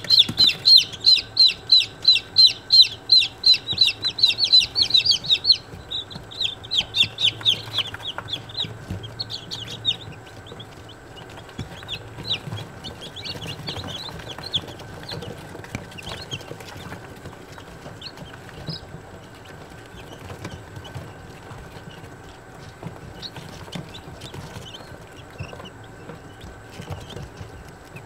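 Day-old chicks peeping: a loud, rapid run of high chirps for about the first five seconds, then quieter, scattered peeps.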